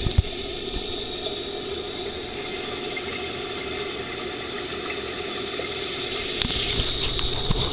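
Steady rushing, bubbling water noise with a thin high whine through it, and a few sharp knocks near the end.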